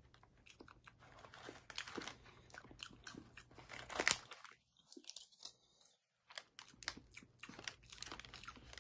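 Close-up chewing and mouth noises of someone eating a strawberry cream roll cake: a run of small wet clicks and crunches, the sharpest about four seconds in, then a short silence before the chewing goes on.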